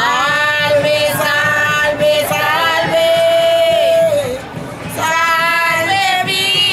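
Women's voices singing an alabao, the unaccompanied sung prayer of Afro-Colombian Chocó: long held notes that slide between pitches, with a short drop in the singing about four seconds in before the voices come back in.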